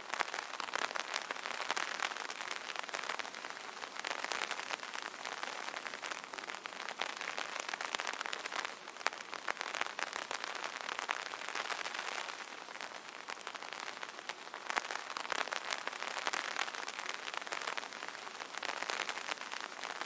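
Rain pattering on an umbrella canopy: a dense, steady hiss of small drop impacts that swells and eases every few seconds.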